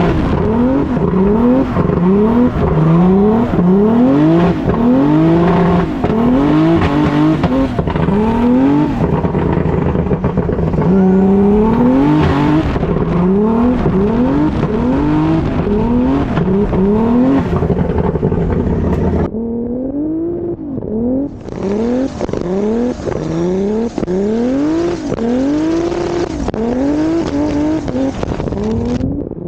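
Turbocharged BMW E46 M3 drift car's engine revving hard, its pitch climbing and falling back again and again, about once a second, with some tire squeal. About two-thirds of the way through, the sound turns thinner, as from a different recording, while the same rise-and-fall pattern continues.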